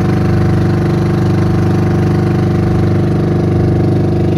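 Small outrigger fishing boat's engine running steadily under way, a loud, even, fast-pulsing drone that holds the same pitch and level throughout.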